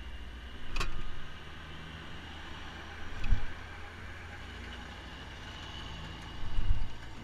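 1978 Yamaha DT400E's air-cooled two-stroke single-cylinder engine running as the bike rides along. Three loud low rumbling bursts stand out, about a second in, at about three seconds and near the end, with a sharp click at the first.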